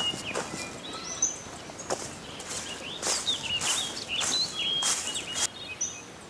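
Footsteps at a walking pace, with birds chirping in quick short calls over them, busiest in the middle.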